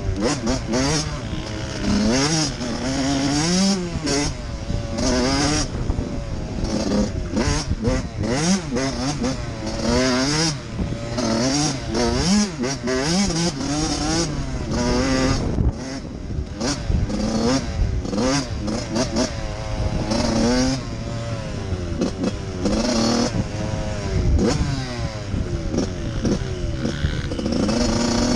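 Dirt bike engine being ridden on a trail, revving up and falling back over and over as the throttle is worked, its pitch rising and dropping every second or two.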